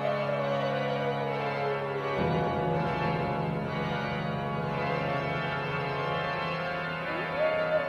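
Eerie horror-effect music: a sustained organ chord drone, with a single gliding tone above it that slowly falls in pitch. The low chord changes about two seconds in, and near the end the gliding tone swoops up and starts falling again.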